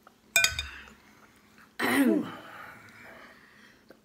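A short clink and knock near the start, then, about two seconds in, a person clearing their throat hard with a falling pitch. The throat clearing is against the burn of the spicy Cajun seafood in the throat.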